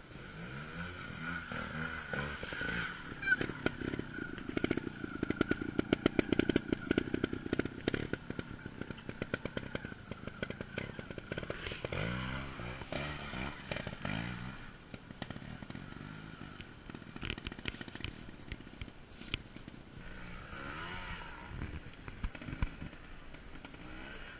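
Trials motorcycle engine revving in short bursts and pulling hard under load, loudest a few seconds in, then dropping back to a quieter run about halfway through.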